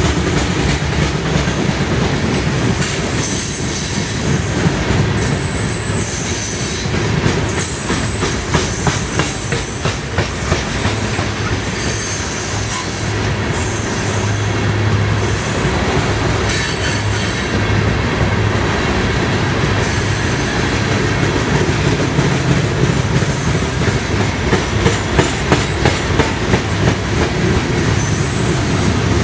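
CSX freight train of hopper cars rolling past at speed: a steady rumble of steel wheels on rail, with brief high-pitched wheel squeals in the first third. Wheels click rhythmically over rail joints, most clearly near the end.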